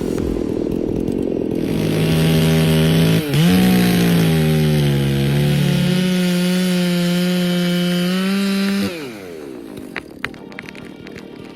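Chainsaw revving up to full throttle and cutting: the engine note dips sharply as the chain bites about three seconds in, sags under load, recovers, then falls away as the throttle is released near the end, leaving quieter clatter.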